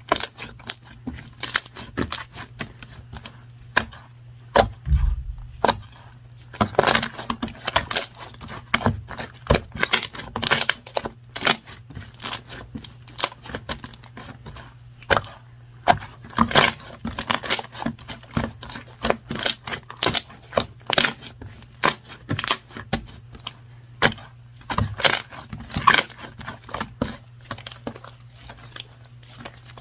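Quick, irregular scratchy strokes and taps of pens or markers on paper, over a steady low hum.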